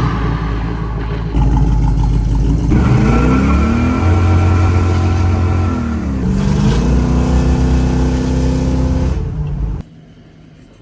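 A motor vehicle engine revving, its pitch rising and falling several times, then cutting off suddenly near the end.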